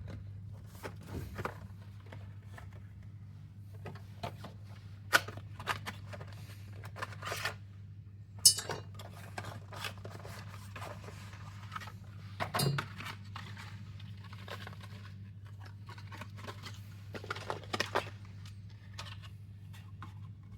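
Small parts and packaging being handled on a workbench: irregular clicks, clinks and light knocks, with a steady low hum underneath.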